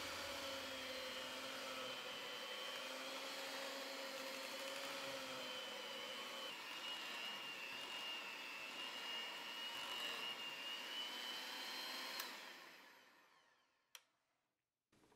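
Cuisinart electric hand mixer running steadily, a motor whine with its beaters churning a thick cheese mixture in a glass bowl. About twelve seconds in the whine dies away as the motor winds down, and a single click follows.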